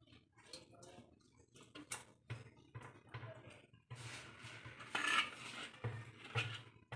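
Steel ladle scraping and knocking against the inside of a clay handi pot as chicken curry is scooped out, in irregular clinks, with the loudest clatter about five seconds in.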